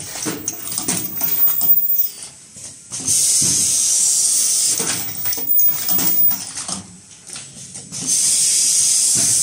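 Fully automatic cup mask machine running: a steady clatter of short mechanical knocks and clicks from its moving stations and chain conveyor. A loud high hiss comes in about every five seconds and lasts a second and a half, twice here, about three seconds in and again near the end.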